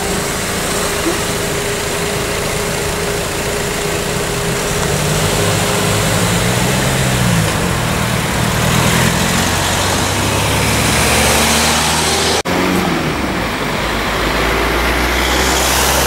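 Car engines running as cars drive slowly past in queuing traffic, over a steady noisy outdoor background. An engine's pitch rises and falls around the middle, and the sound breaks off for an instant about three-quarters of the way in.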